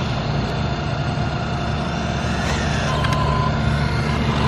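Arrma Vendetta 3S BLX RC car's brushless motor whining as the car drives back in, its pitch rising and falling about halfway through, over a steady low rumble.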